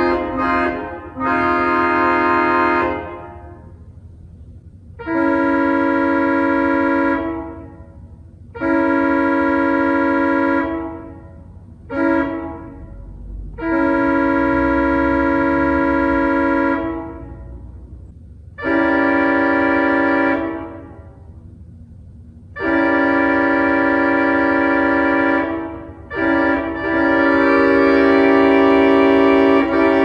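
Pipe organ sounding sustained chords that imitate North American locomotive air horns, first a Nathan Airchime M5, then a Leslie RS-3L. The chords come as separate horn blasts, with a long-long-short-long sequence in the middle like a grade-crossing signal, and end on one last long blast.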